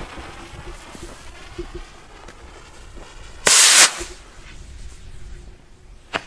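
Zink Z2 firework rocket's fuse burning faintly, then about three and a half seconds in the rocket motor ignites with a loud half-second whoosh as it lifts off. A single sharp crack comes near the end.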